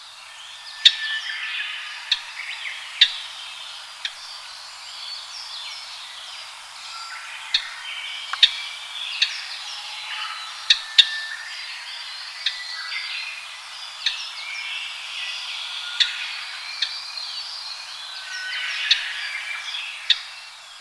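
Japanese grosbeaks singing and calling: a dense stream of short chirping and whistled notes, broken by a dozen or so loud, sharp single notes.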